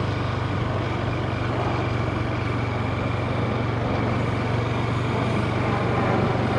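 2022 Honda Grom's small single-cylinder engine running at a low, steady pace while riding at walking speed, with an even hiss of wind and road noise over it.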